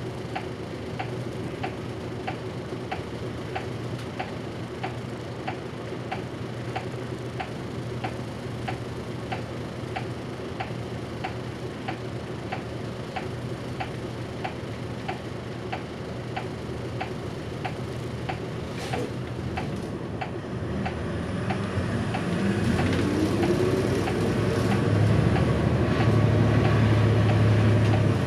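A bus's turn-signal relay ticking steadily over the low hum of the idling diesel engine. About twenty seconds in, the engine revs up with a rising whine as the bus pulls away and grows louder.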